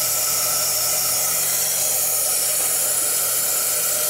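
Steady, unbroken hiss of rushing air with a faint low hum underneath, from the running Amada Brevis laser cutting machine.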